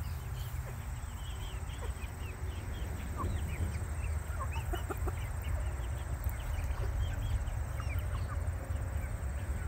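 A flock of young chickens feeding, calling constantly with many short high chirps and soft clucks over a steady low rumble.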